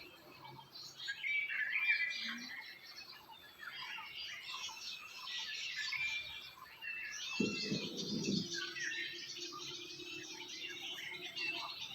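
Many birds chirping and singing over one another in a dense chorus of short, high calls. About seven and a half seconds in there is a brief low rumble, followed by a faint steady low hum for a few seconds.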